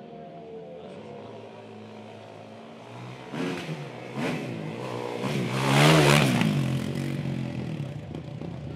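Stunt motorcycle engine revving hard as it rides past close by: pitch and loudness climb from about three seconds in, peak around six seconds, then fall away. Faint background music plays in the first few seconds.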